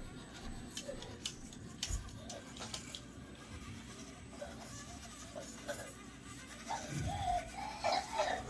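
Faint scattered clicks and knocks from 1/24-scale Axial SCX24 RC crawlers working over a course. A short wavering pitched sound comes in near the end.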